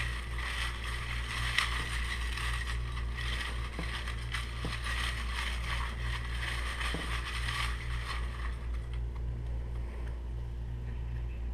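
Folded paper slips rustling as a hand stirs them around in a glass bowl, with a few faint clicks; the rustling dies away about eight seconds in as one slip is lifted out. A steady low hum runs underneath.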